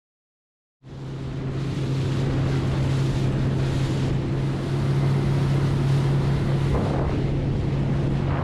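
Boat engine running at a steady hum, with wind buffeting the microphone and water rushing past. It starts abruptly about a second in.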